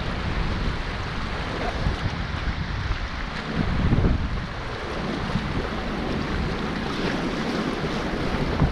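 Rushing river water, a steady noisy wash, with wind buffeting the microphone and a louder swell about four seconds in.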